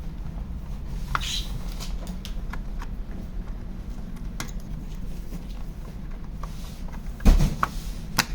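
Scattered clicks and light knocks of hard parts being handled, over a steady low hum, with one louder thump about seven seconds in.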